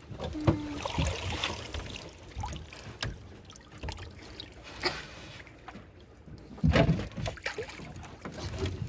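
Sea water splashing and trickling, with scattered knocks.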